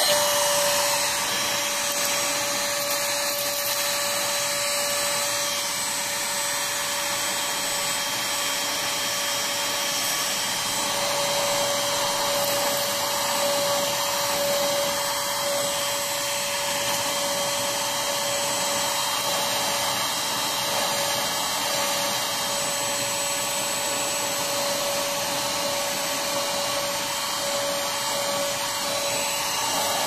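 Cordless battery-powered vacuum cleaner running steadily while vacuuming a carpet: a constant rush of air with a steady motor whine.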